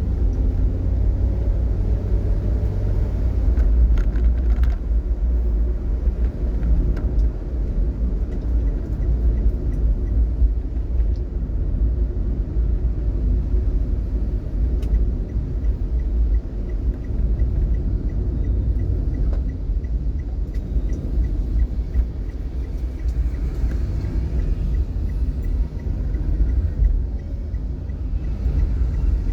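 Steady low rumble of a vehicle on the move, engine and road noise.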